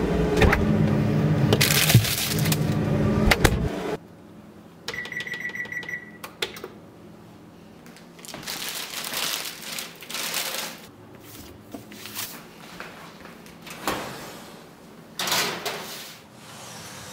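A loud, sustained sound that cuts off abruptly about four seconds in, then an electric range's control panel beeping with one steady high tone for about a second amid button clicks. After that come several bouts of clattering as an aluminium baking sheet is handled and the oven door is opened.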